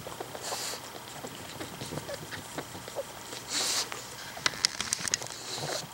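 Mother pug and her newborn puppies snuffling and stirring: two short breathy snuffles and a quick run of small clicks near the end.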